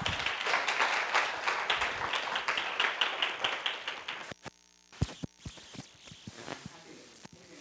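Audience applauding, which dies away about four seconds in, leaving a few scattered claps.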